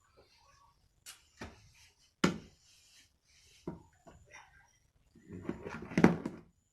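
A string of separate sharp knocks and clicks, then a denser burst of clicking and knocking about five to six and a half seconds in.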